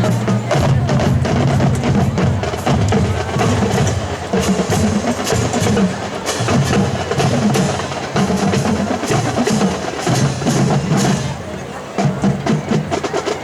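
High school marching band percussion section playing a drum cadence: rapid snare and bass drum strikes over low sustained tones, dipping briefly near the end.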